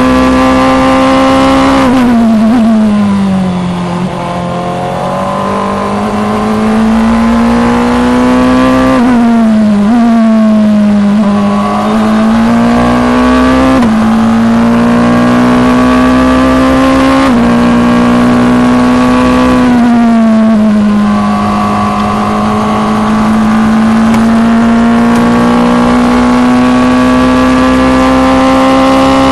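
Onboard sound of a Formula Two single-seater's engine at racing speed, mostly holding steady high revs. The revs drop and climb back about two seconds in, again around nine seconds and once more near twenty seconds, as the car brakes and shifts down for corners.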